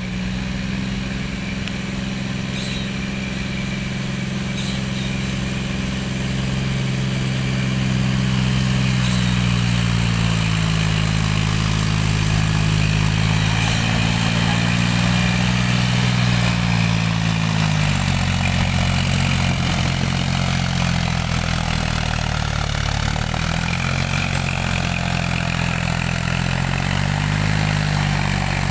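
John Deere tractor's diesel engine running under heavy load, pulling two trailers piled with sugarcane, getting louder as it approaches and passes close by. The engine note dips and recovers a couple of times in the second half as it lugs under the weight.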